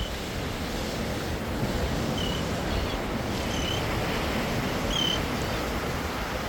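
Steady surf washing in and wind on the microphone, with about five short, high seagull calls spaced a second or so apart.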